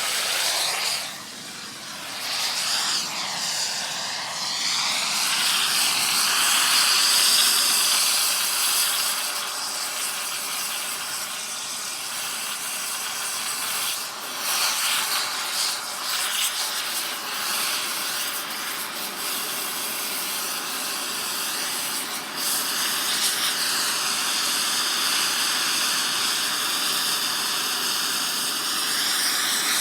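Air torch blowing a steady, loud hissing flame on metal. It starts abruptly, and its tone sweeps up and down several times in the first few seconds and again later, as the torch moves.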